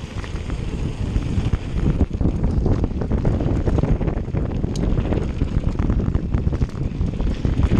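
Wind buffeting the microphone over the rumble of knobby tyres on a hard-packed dirt and gravel trail, with a steady run of clicks and rattles from a mountain bike descending at speed.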